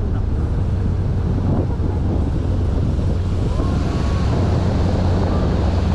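Small sightseeing cruise boat under way: a steady low engine drone with wind buffeting the microphone and water rushing past the hull. The hiss grows brighter about halfway through, as the boat passes under a low bridge.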